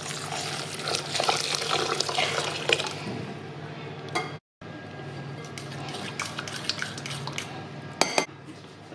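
Clatter of pans and cooking utensils with a hissing haze, over a steady low hum; the sound cuts out for a moment about halfway through, then the clatter carries on with a few sharp clinks near the end.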